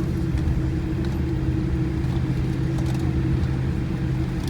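Steady, even drone of a running vehicle's engine, with a constant low hum and a few faint ticks.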